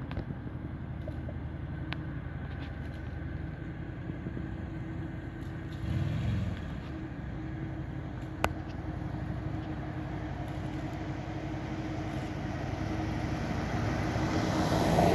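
Vehicle engine idling with a steady low hum, with one sharp click about eight seconds in. Near the end, tyre and engine noise grows louder as a vehicle starts to come closer.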